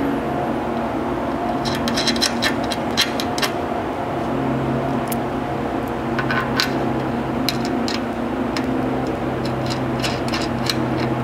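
Small metal clicks and taps, scattered in short clusters, as button-head bolts and serrated flange nuts are handled and threaded by hand into a metal roof-rack mounting bracket. Under them a steady machine hum runs throughout.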